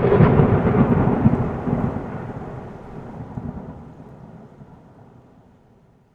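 A long roll of thunder, loud at first, with its weight in the low rumble, then fading steadily over several seconds to almost nothing by the end.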